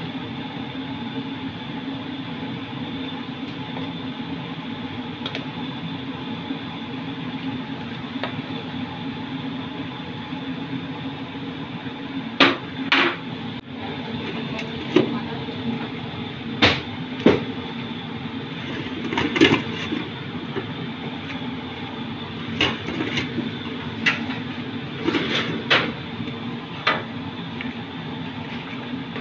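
A metal ladle clinks and knocks against the rim and sides of an aluminium cooking pot while vegetables are stirred into the soup. The knocks come irregularly from about halfway through, some in quick pairs, over a steady background hum.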